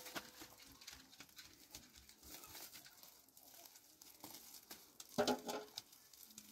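Faint rustling and light tapping from a woven flour sack being handled at its mouth over a large aluminium basin, with a brief, louder voice-like sound about five seconds in.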